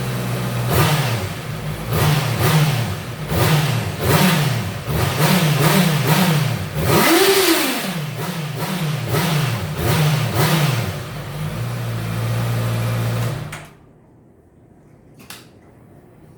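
Honda CB650F inline-four engine through its stock exhaust, idling and then blipped repeatedly in quick revs, with one longer rev in the middle. It settles back to a steady idle and cuts off near the end, followed by a single click.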